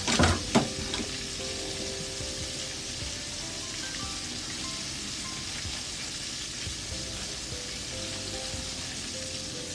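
Ketchup sauce simmering in an open aluminium pot, a steady bubbling hiss as it thickens. A few knocks come in the first second.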